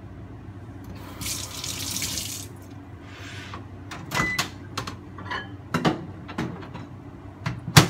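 Kitchen tap running briefly into a stainless steel sink, followed by a string of sharp clinks and knocks of dishes and utensils being handled, one clink ringing briefly; the loudest knock comes near the end.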